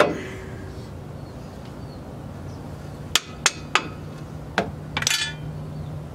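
Sharp metal knocks and taps from a new rear brake pad being whacked into the caliper bracket of a Lexus IS300. The pad hangs up and will not slide in freely. One loud knock comes first, then a quick run of about five lighter taps about three seconds in, the last one ringing briefly.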